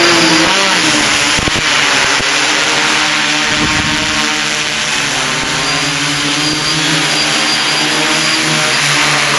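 Quadcopter's electric motors and propellers buzzing loudly as it flies close by, the pitch of the buzz shifting slightly as it manoeuvres.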